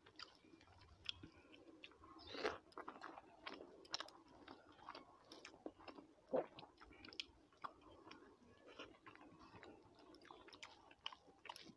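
Faint eating sounds: chewing with scattered small mouth clicks, and fingers working rice on a plate.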